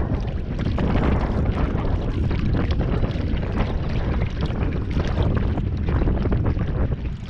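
Wind buffeting the microphone with a steady low rumble, over choppy river water lapping and splashing right beside it.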